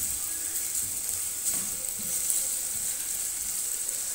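Sliced onions sizzling steadily in hot oil in a metal pot, while a spatula stirs them.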